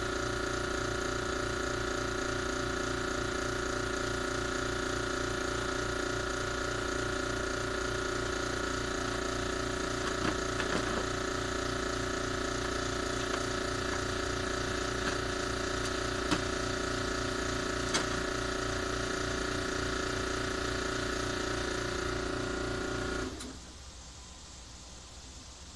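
A motor-driven machine runs steadily with a fast low pulsing and a few held tones, then shuts off abruptly near the end, leaving only a faint hiss. A few light clicks come during the middle.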